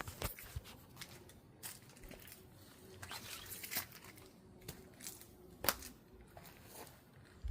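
Faint rustling and crinkling of plant material, with a few sharp clicks spread through.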